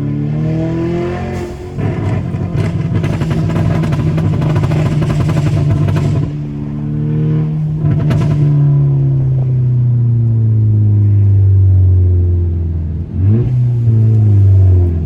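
Tuned Mk6 Volkswagen GTI's turbocharged four-cylinder accelerating and backing off, with a run of sharp exhaust pops and crackles from the tune's overrun map. The revs climb twice, fall away in a long drop, then blip up sharply and fall again near the end.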